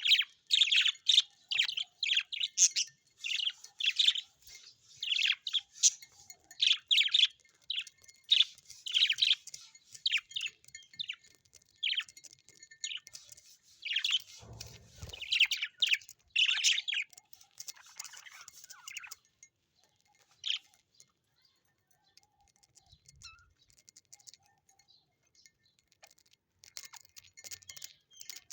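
Small birds chirping: a quick run of many short, high chirps that thins out about two-thirds of the way in to a few scattered calls, picking up again at the very end. A soft low thump comes about halfway through.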